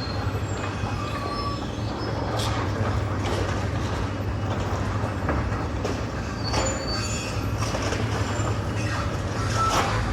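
Heavy demolition machinery at work: a steady engine drone with scattered metal clanks and brief high squeals of metal scraping on metal.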